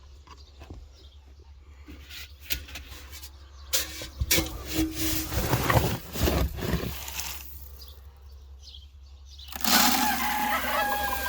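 Knocks, clatter and scraping as a metal feed bin is opened and poultry feed is scooped, then a louder rushing sound about ten seconds in as feed pours into a bucket.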